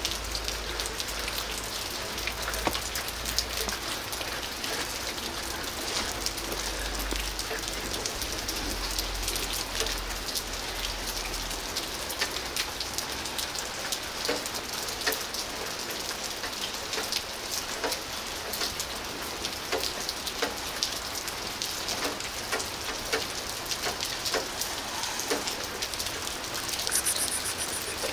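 Steady rain falling on pavement, an even hiss dotted with the ticks of single drops, with a low rumble under it for about the first twelve seconds.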